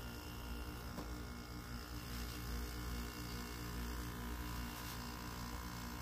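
Window air conditioner's hermetic compressor running on its own with the fans off: a steady low hum. It is wired straight through the capacitor with the electronic board bypassed, and running this way shows the compressor itself works; the fault is put down to the board, probably its relay.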